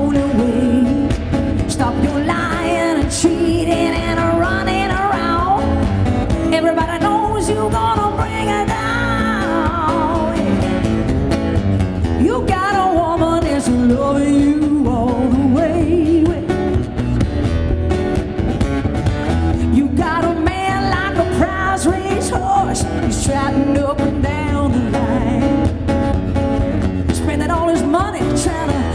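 A woman singing with acoustic guitar accompaniment, performed live.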